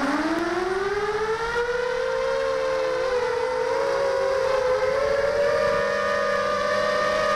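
Four brushless motors and three-blade propellers of a 250-size FPV quadcopter spinning up, heard from the camera mounted on the quad: a whine rising in pitch over the first two seconds, then levelling into a steady whine of several close tones that drift and cross as the motors run at slightly different speeds.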